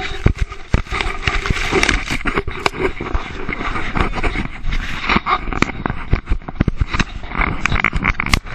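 Handling noise on a GoPro Hero 3 camera as a puppy plays with it: many quick clicks, knocks and scrapes against the camera case, with grass brushing over it.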